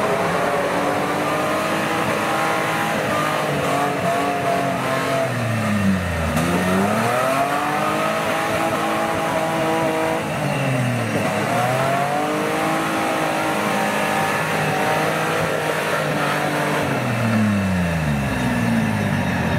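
Off-road 4x4's engine revving hard under load, its revs dropping and climbing back up three times: about six seconds in, about eleven seconds in, and near the end.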